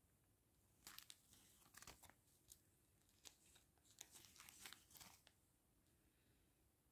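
Faint crinkling of a small clear plastic bag of round diamond-painting drills being handled, in a few short clusters with quiet gaps between.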